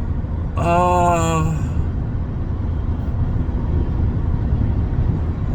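Steady low road and engine rumble inside a moving car's cabin. About half a second in, a man lets out one drawn-out, wordless 'ohh' lasting about a second.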